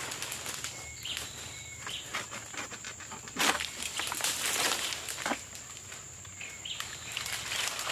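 Outdoor plantation ambience: a steady high-pitched insect drone, a few short bird chirps, and bursts of rustling and scraping about three and a half and five seconds in.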